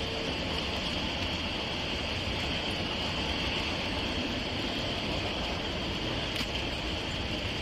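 Steady rumble and hiss of a vehicle running at a standstill, with one faint click about six seconds in.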